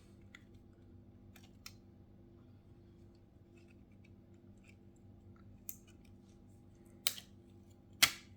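Small hard tools clicking and tapping against an iPhone 7 as it is taken apart: a few faint clicks, then two sharp, loud clicks near the end, over a faint steady hum.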